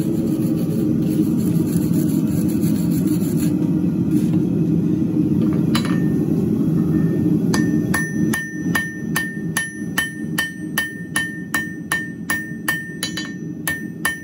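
Gas forge burner running with a steady rush. About eight seconds in, a light hammer starts striking a red-hot square steel bar on the anvil at an even two to three blows a second, each blow ringing. These are the final planishing blows that smooth and crisp up the square's faces.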